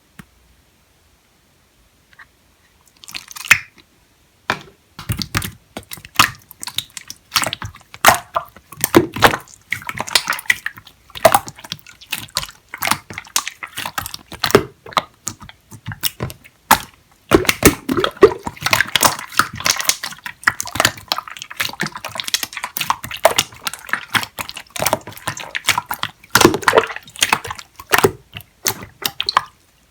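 Hands squishing, stretching and poking clear slime: sticky wet pops and crackles in quick, irregular clicks, starting about three seconds in and growing denser in the second half.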